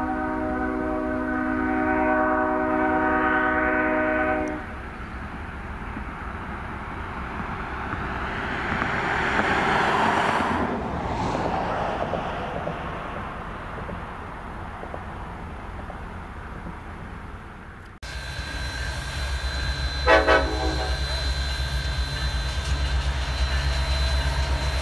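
A distant freight train's horn sounds one long chord that cuts off about four seconds in; the train's far-off rumble then swells and fades. After a sudden change, locomotives idle close by with a steady low rumble, and a short horn toot sounds about two seconds later.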